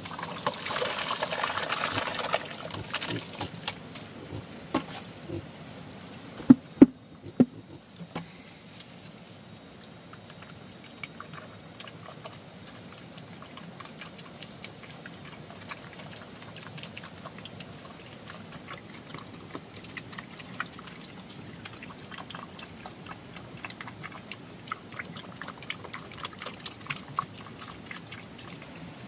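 A rush of pouring or splashing water lasting about two seconds, then three sharp knocks in quick succession, followed by scattered small clicks and taps over a low steady background.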